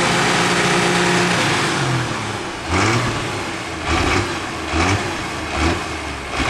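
Diesel super stock pulling tractor's engine held at high revs for about the first second and a half, then dropping back and being blipped up about four times in quick succession.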